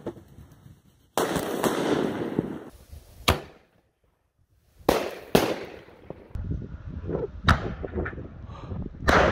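Artillery-shell firework fired from its mortar tube: a run of about six sharp booms, the first trailing into more than a second of hissing rush.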